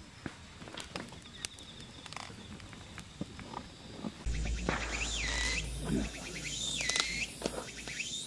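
Faint scattered clicks, then from about four seconds in wind buffeting the microphone, with three high whistled calls that drop in pitch and level off, about a second and a half apart.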